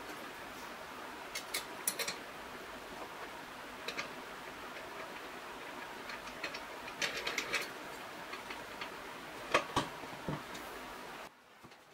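A small hand tool scraping and clicking against the metal bottom of a stainless steel pot: scattered sharp ticks and taps in small clusters over a steady hiss, which drops away suddenly near the end.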